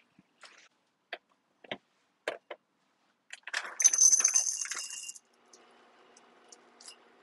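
Kitchen utensils clinking and knocking a few times, then about two seconds of dense clinking, jangling clatter, the loudest part. A faint steady hum sets in after it.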